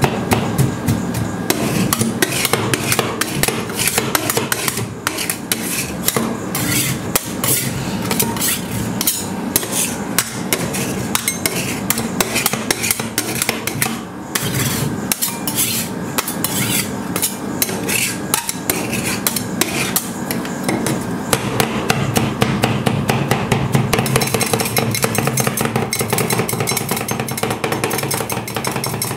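Two steel spatulas chopping rapidly against a steel ice-pan plate, a dense run of sharp metal taps and scrapes as cookies are chopped into the cream base. The taps turn quicker and brighter about three-quarters of the way in as the mixture is worked and spread. A steady hum runs underneath.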